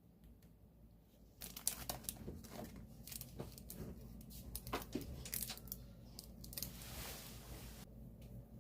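Packaging being crinkled and torn open, with sharp crackles and rustling that begin about a second and a half in, thicken near the end and stop suddenly.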